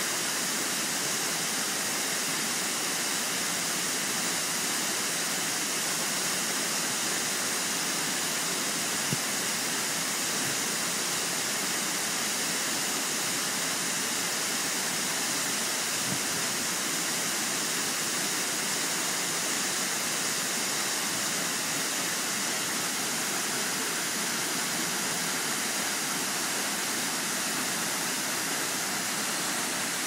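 Kuang Si waterfall plunging into its pool: a steady, even rush of falling water that does not let up. A small knock sounds once about nine seconds in.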